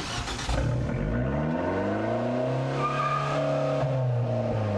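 Car engine with an aftermarket twin exhaust revved up, held briefly at speed, then let fall back, as for a stationary noise test, which the registration sets at 90 dB at 4125 rpm. The exhaust measures about 5 dB over that limit.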